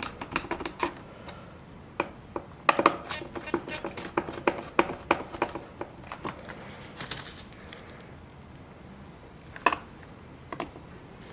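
Small screwdriver turning the tiny mounting screws of a KST X10 Mini servo in its frame: irregular runs of small clicks and scrapes with short pauses between them. The screws are being brought just snug, as they strip easily.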